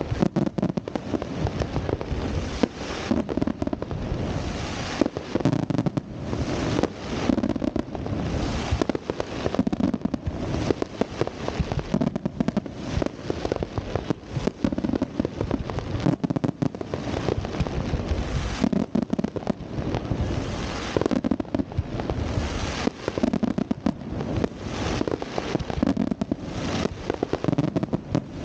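Fireworks display: a dense, continuous barrage of shell bursts, heavy booms coming in clusters every second or two over constant crackling.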